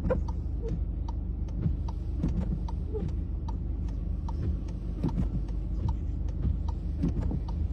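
A road vehicle's low, steady rumble, with faint irregular clicks or ticks about two or three times a second.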